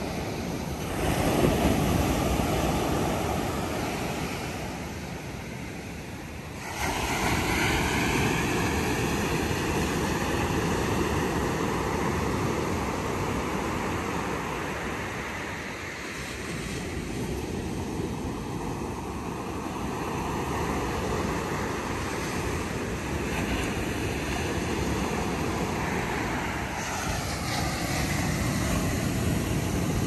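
Ocean surf breaking and washing up a sandy beach: a steady rushing wash that swells as each wave comes in, most plainly about a second in and again about seven seconds in.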